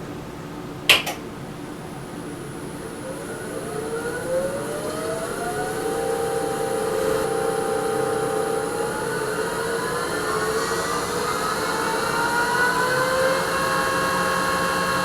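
Bauer 14x20 midi lathe switched on in reverse: a click about a second in, then the motor and belt-driven spindle whine as they spin up, the pitch rising in steps as the speed is turned up and holding steady near the end.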